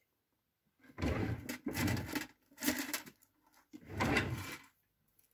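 Three rubbing, scraping handling sounds, each about a second long or less, as things are moved about on a table.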